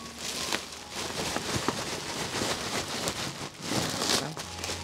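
Dry sawdust bedding pouring and sliding out of a woven plastic feed sack onto the coop floor: a rain-like rustling hiss that swells and fades several times and is loudest near the end.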